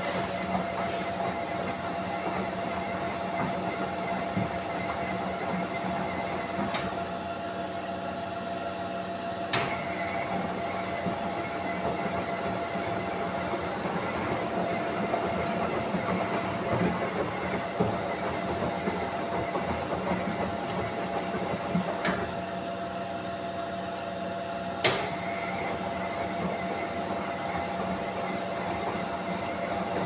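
Miele Professional commercial washing machine running a 50° whites wash: the drum tumbling the laundry over a steady motor hum and a constant high tone. A few sharp knocks stand out, the loudest about ten and twenty-five seconds in.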